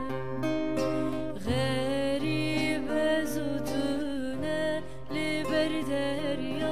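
A woman singing a slow, sad Kurdish song with wavering, ornamented held notes, accompanied by a nylon-string classical guitar.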